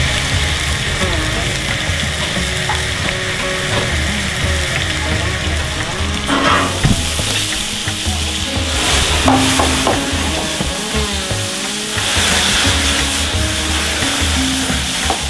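Sliced yak meat and vegetables sizzling in a black steel frying pan over a high gas flame as they are stirred and tossed. The sizzle surges louder about six and a half, nine and twelve seconds in, as the pan is worked and flames flare up.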